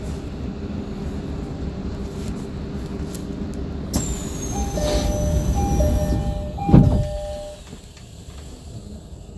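Odakyu 3000-series train standing at a platform with its steady hum. Then the door chime plays a two-note ding-dong three times while a high falling whine runs under it, and the sliding doors shut with a heavy thud about seven seconds in, ready for departure.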